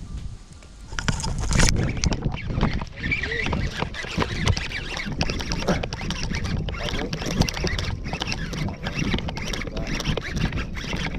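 Water splashing and rough, clicking handling noise close to the microphone, starting about a second in, as a hooked bass is brought in.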